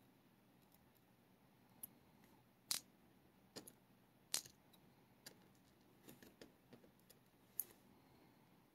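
Faint, scattered clicks of small metal parts of an American Lock A1100 padlock and tweezers being handled during reassembly of its pin-tumbler cylinder, two of them sharper than the rest about a third of the way and halfway through.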